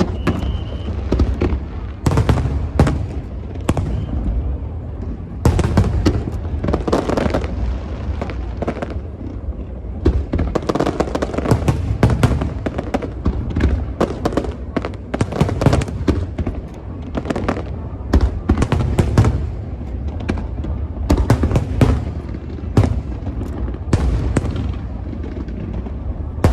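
Aerial fireworks display: shells bursting in rapid clusters of sharp bangs and booms, one after another, over a continuous low rumble.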